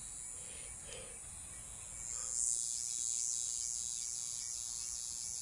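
Steady high-pitched insect chorus, swelling about two seconds in and holding.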